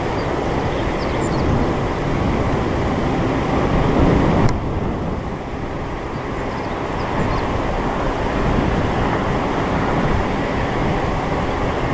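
Boeing 747-400 freighter's jet engines running at taxi power: steady jet noise with a low rumble. The higher hiss drops away suddenly about four and a half seconds in.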